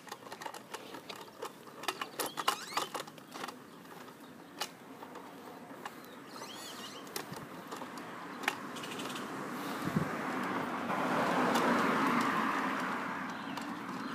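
Irregular clicking and rattling in the first few seconds, then a vehicle passing on the street beside the sidewalk: a rush that swells, is loudest about twelve seconds in, and eases off.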